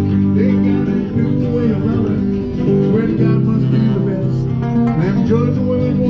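Guitar music playing steadily.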